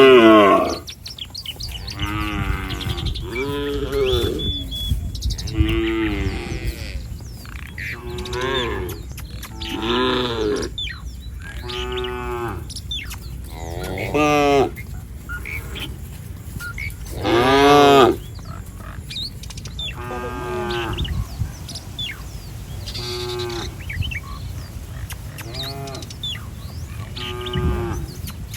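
A herd of cattle mooing over and over, about fifteen calls at differing pitches, one every second or two, each rising then falling in pitch. The loudest calls come at the very start and about two thirds of the way through.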